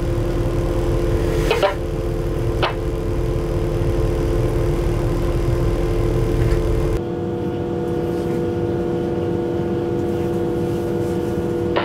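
Cab noise of a Eurosprinter class 120 electric locomotive under way: a steady low rumble with a constant hum of several tones, and two sharp clicks in the first three seconds. About seven seconds in, the rumble drops away abruptly and the hum shifts slightly in pitch.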